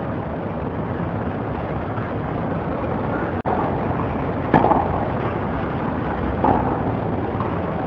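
Tennis ball struck by rackets twice in a rally, about two seconds apart, sharp hits over a steady background hum.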